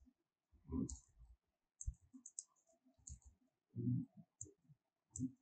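Faint computer keyboard clicks as a few characters are typed, irregular and sparse, with a few short low thuds among them.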